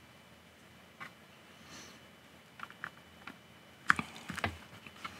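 Small Lego pieces being pressed and snapped by hand onto a Lego plate: a few scattered small clicks, the sharpest about four seconds in, followed by a short cluster of clicks.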